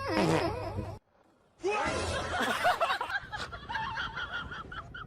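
People laughing in two short clips, with a brief gap about a second in; in the second, the laughter breaks into a quick run of repeated bursts.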